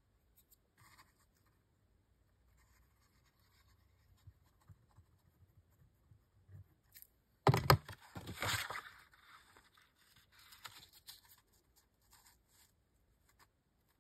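Kraft cardstock being handled and rubbed on a cutting mat, faint for the most part. About seven and a half seconds in there are two quick knocks, the loudest sounds, followed by a brief louder rustle of card, then light rubbing as the glued pieces are pressed together.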